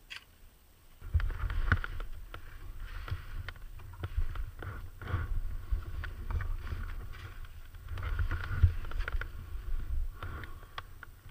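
Irregular rumbling and crunching as the wearer of a body-worn camera moves about in deep snow, with gear rubbing and knocking on the microphone. It starts about a second in.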